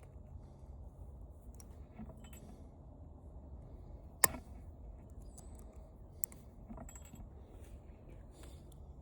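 Light metallic clinks and taps of tools and small metal parts being handled during disassembly of a floor fan, with one sharp click about four seconds in and a smaller one a couple of seconds later, over a steady low background rumble.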